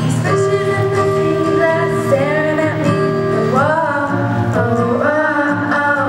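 Girls' voices singing over acoustic guitar accompaniment, a live pop-song cover: a long held note, then slides up into new notes about three and a half seconds in and again near the end.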